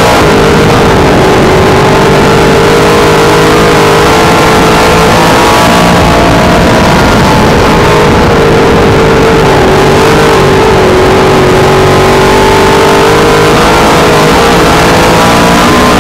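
Dirt modified race car's V8 engine running hard, heard from inside the cockpit and very loud. Its pitch dips and climbs again twice as the car laps the dirt oval.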